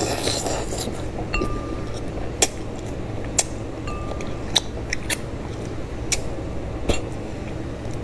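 Close-up mouth sounds of eating a chicken head in red chili oil: a short sucking noise at the start, then chewing with sharp clicks and smacks about once a second.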